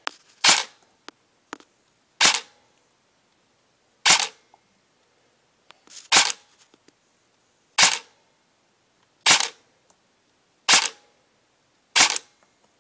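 Custom G&P M4 Stubby Killer airsoft electric gun with a suppressor on the muzzle, run on a 7.4-volt LiPo, firing single shots through a chronograph. There are eight sharp shots, one about every one and a half to two seconds, clocking about 320–330 fps.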